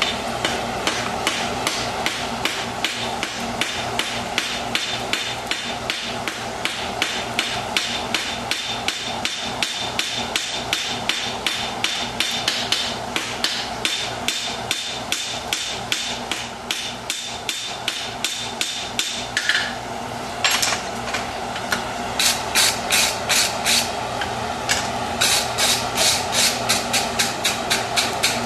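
Farrier's hammer striking a hot steel horseshoe in quick, even blows, about three a second, drawing out the toe clip. The blows get louder and ring brighter in the last few seconds.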